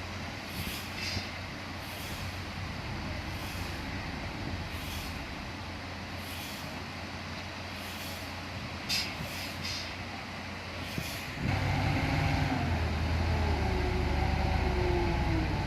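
Heavy diesel machinery running steadily, with short hissing puffs about once a second. About eleven seconds in, a louder diesel engine comes in close and revs up.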